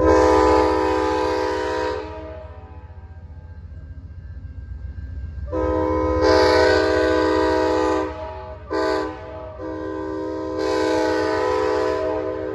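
A passenger locomotive's air horn sounding a chord of several tones in the grade-crossing pattern: long, long, short, long, the last blast still going at the end. It warns of the train approaching a road crossing.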